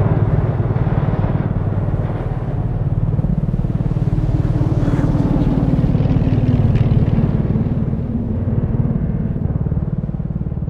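Sound effect of the Berg, a fictional hovering aircraft: a deep, steady engine rumble with a fast throb, and a fainter tone that rises a little midway and then settles back.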